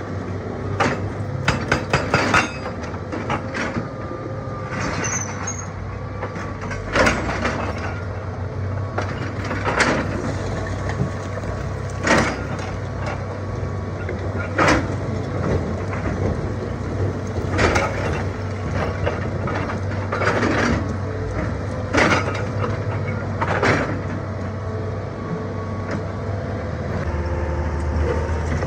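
Excavator engine running steadily, with sharp knocks of steel against rock every two to three seconds as it breaks and shifts rocks, a quick run of clanks near the start.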